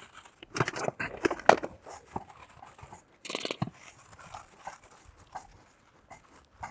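Paper towel rubbing and crinkling over a small greasy stepper motor as it is wiped clean with isopropanol, with small clicks and knocks of the motor being handled. There is a brief hissing rustle just after three seconds; the handling is busiest near the start and then thins to a few faint ticks.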